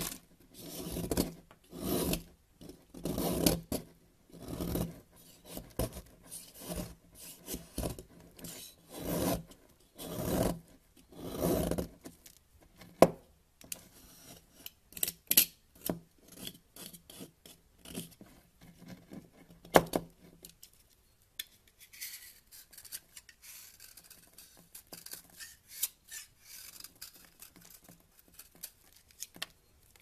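Snap-off utility knife blade scraping and cutting into a dry, crumbly bar of soap, in quick rasping strokes a little under two a second. The strokes turn lighter and finer after about twelve seconds, with two sharp clicks along the way.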